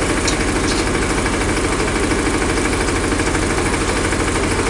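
An engine running steadily at idle, with a fast, even chugging pulse.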